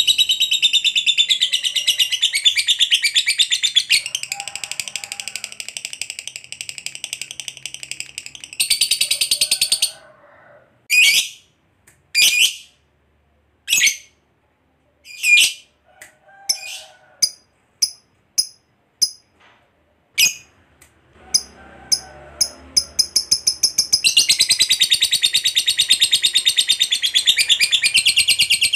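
Lovebird giving its long, rapid, high-pitched chattering trill (ngekek panjang). The trill breaks off after about ten seconds into a string of short, sharp single chirps with pauses, then the fast chatter resumes near the end.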